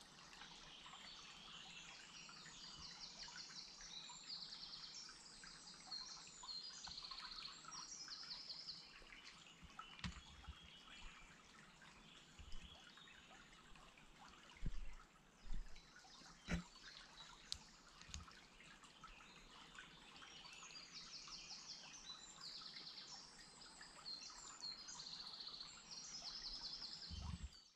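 Songbirds singing in woodland, faint, in short repeated phrases of quick high notes, busiest at the start and again near the end. A few dull low thumps come around the middle.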